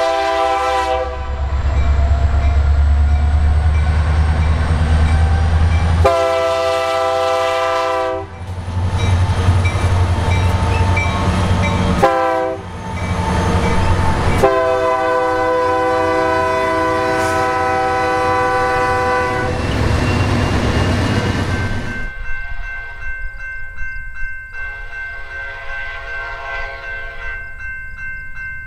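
Freight train's diesel locomotives sounding a multi-chime air horn in the grade-crossing pattern, long, long, short, then one long blast, with the locomotives' engines rumbling loudly between the blasts as they pass close by. Near the end a fainter horn and train sound follow a cut.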